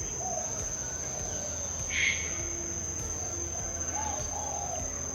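Aviary birds giving short warbling calls, with one louder, sharper call about two seconds in, over a steady high-pitched insect trill.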